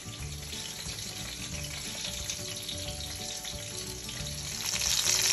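Breaded chicken nuggets frying in sunflower oil in a pan: a steady soft sizzle that grows louder near the end.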